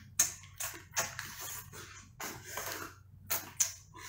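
Short, sharp sucking slurps, about seven of them spread over a few seconds, as the meat of small cooked spiral-shelled sea snails is sucked out of the shells.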